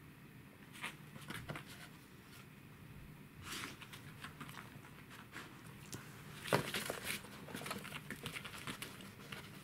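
A Pembroke Welsh corgi nosing and pawing at two stacked plastic boxes: scattered clicks, taps and scrapes of plastic, with the loudest flurry of scraping about six and a half seconds in.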